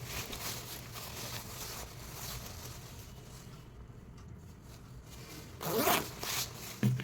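A jacket zipper being zipped, with the fabric rustling; a louder rasp of the zip comes about six seconds in.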